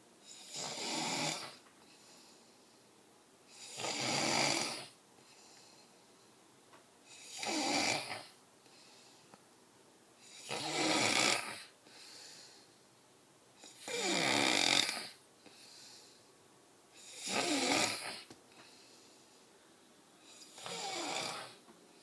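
A man snoring in his sleep: seven loud snores, evenly paced about three and a half seconds apart and each lasting about a second. Fainter breathing can be heard between them.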